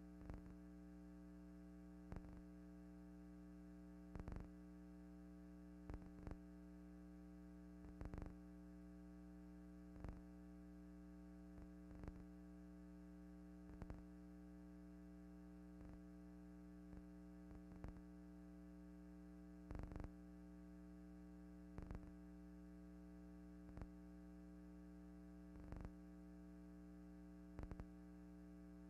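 Faint steady electrical hum, with a soft click about every two seconds; no aircraft sound is heard.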